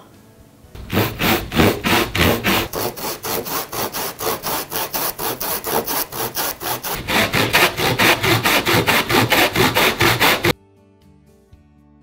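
Tenon saw (Silverline Tri-Cut hardpoint) cutting groove kerfs into softwood pine, in rapid, even strokes about five a second, starting about a second in and stopping abruptly near the end.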